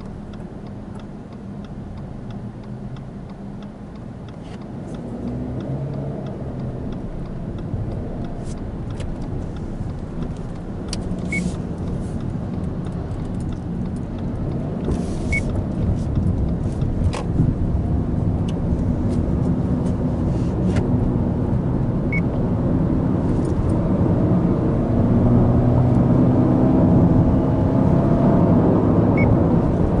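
In-cabin sound of a Subaru Impreza Sport 1.6i-L's FB16 flat-four with Lineartronic CVT, pulling away from a stop and accelerating with the air conditioning on. The engine and road noise grow steadily louder from about four seconds in, with a few faint clicks scattered through it.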